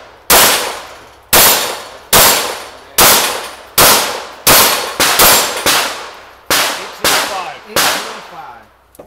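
Glock pistol firing a rapid string of about a dozen shots, unevenly spaced from about a third of a second to a second apart, at a rack of steel plates. The struck plates clang, and the last shot comes about a second before the end.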